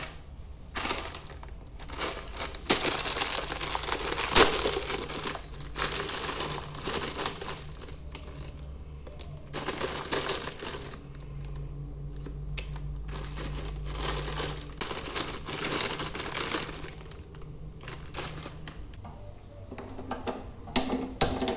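Plastic wrapper of a Wai Wai instant noodle packet crinkling in repeated bursts as it is opened and handled, over a steady low hum. Near the end, a short metallic knock with a brief ring as a steel wok is set on the gas stove.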